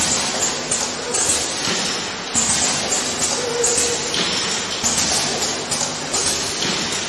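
Automatic essential oil filling and capping machine running, with irregular clinks and taps of small glass bottles moving on its rotary table.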